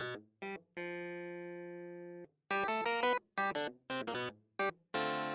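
Background music: short plucked chords in quick groups, broken by two long held chords that ring and slowly fade, with brief gaps between phrases.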